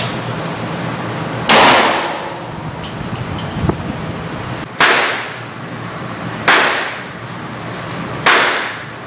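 Four single pistol shots, the first about 1.5 s in and the rest coming quicker near the end. Each is a sharp crack that dies away in a long echo inside an indoor range. The first is a .50 AE Desert Eagle.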